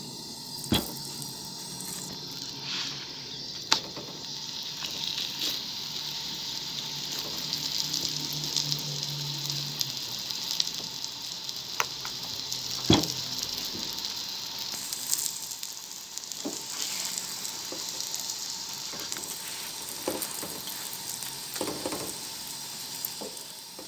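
Stuffed potato paratha frying in oil on a hot tawa, with a steady sizzle. A few short sharp clicks stand out above it.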